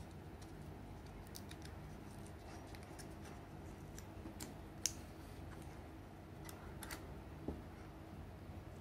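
Faint crinkling and ticking of adhesive mouse grip tape being peeled from its backing sheet and pressed onto the plastic side of a gaming mouse, with a sharper click about five seconds in.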